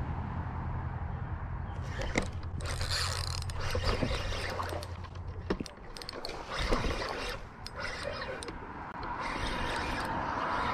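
Spinning reel being cranked to retrieve line, its gears whirring with sharp clicks from the handle and bail, irregular rather than steady. A low steady hum sits underneath for the first half and stops about five and a half seconds in.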